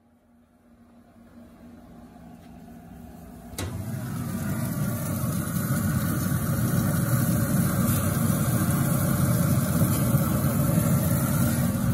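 Pit Boss pellet grill's fire running with the lid open: a steady low rush of flame and fan with a sizzling hiss over it. It jumps louder with a click about three and a half seconds in, as the lid comes open.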